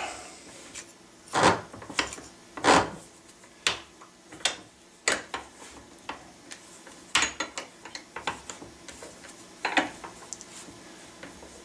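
Irregular sharp metal knocks and taps, about ten spread unevenly, from steel tools and a bench vise working the fold of a sheet-metal ramrod thimble around its mandrel. Quieter scraping and handling noise lies between the knocks.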